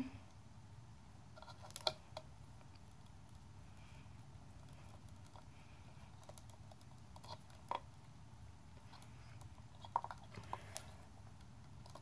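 Faint, scattered small clicks and ticks of wires and a plastic wire nut being handled and twisted on, over a low steady hum. There is one sharper tick about two seconds in, another near eight seconds, and a small cluster around ten seconds in.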